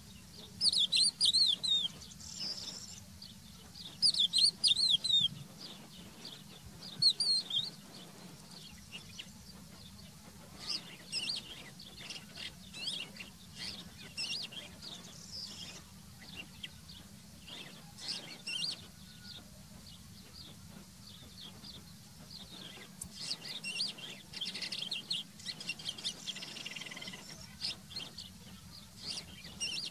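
Crested lark singing: phrases of quick, sweeping high whistled notes. Three loud phrases come in the first eight seconds, then softer, more scattered notes, with another run of phrases near the end.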